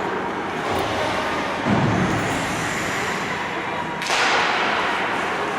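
Ice hockey game play in a rink: a steady wash of background noise with a dull thud about two seconds in and a sharp impact about four seconds in, typical of pucks, sticks and bodies hitting the boards and ice.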